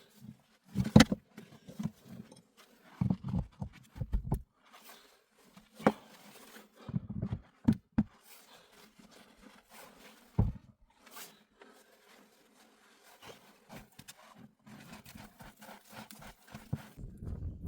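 A series of irregular thuds and crunches, one every second or two, with quieter rustling between them that thins out in the second half.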